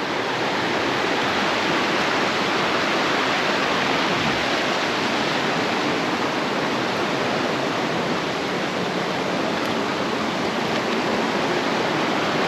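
Brook water rushing and splashing over small falls, a steady wash of noise.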